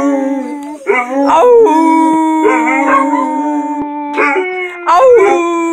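Three dogs, a Black Mouth Cur, a Redbone Coonhound and a Catahoula, howling together in long overlapping howls. One holds a steady note while the others slide up and down in pitch.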